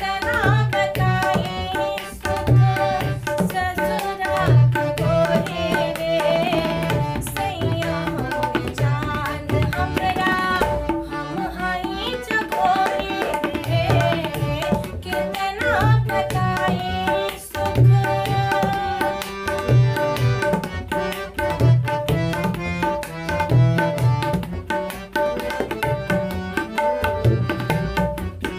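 Tabla accompaniment: a steady rhythmic pattern with deep, resonant bass-drum (bayan) strokes under a bending melodic line of the song.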